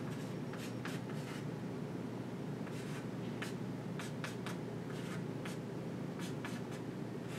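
Chalk writing on a chalkboard: a string of short, irregular strokes and taps as letters and symbols are written, over a steady low hum.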